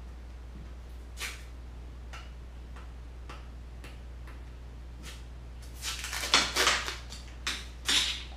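Masking tape being peeled off a tape arbor built up on a fishing rod blank. A few soft ticks, then crackly ripping about six seconds in and two more short rips near the end. A steady low hum runs underneath.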